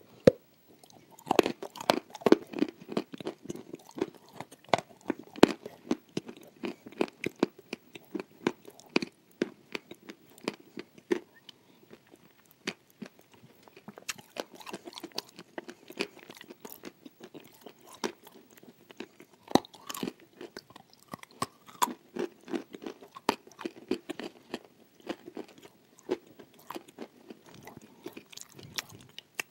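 Close-up crunching and chewing of a dry, pressed clay 'cookie' on a lapel microphone: a bite about a second in, then continuous crunchy chewing full of sharp crackles, easing briefly around the middle before picking up again.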